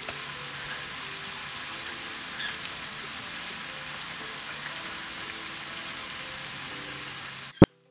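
Masala paste sizzling steadily in hot oil in a nonstick frying pan, a continuous even hiss, cut off abruptly by a sharp click near the end.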